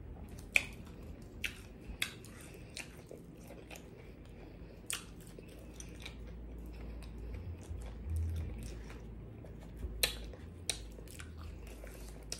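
Close-up eating sounds of fried okra being bitten and chewed: scattered sharp crunches and mouth clicks between quieter chewing. A dull low bump comes a little past halfway.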